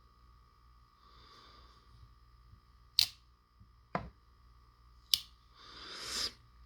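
Three sharp clicks about a second apart from a pocket knife and its presentation box being handled, then a short rising rush of noise near the end.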